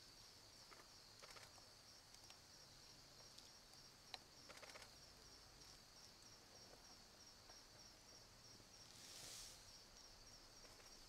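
Faint, continuous high-pitched insect trill pulsing a few times a second, over quiet outdoor ambience. There is a single sharp click a little after four seconds in and a short rush of noise about nine seconds in.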